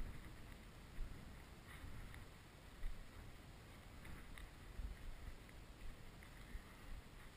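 A person's footsteps through dry rapeseed stubble, heard as irregular soft knocks and rustles over a low rumble of wind on the microphone.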